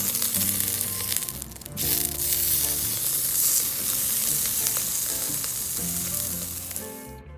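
Meat sizzling on a shichirin charcoal grill, an even loud hiss with background music underneath. The sizzle dips briefly about two seconds in and cuts off just before the end.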